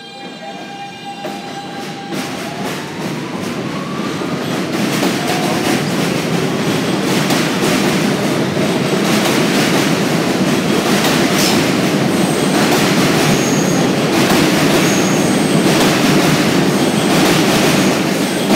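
R160B subway train with Siemens propulsion pulling out and accelerating: the traction motors' whine rises in pitch over the first few seconds. It then builds to a loud rush of wheels on rail with a clickety-clack over the rail joints, and brief high wheel squeals in the second half.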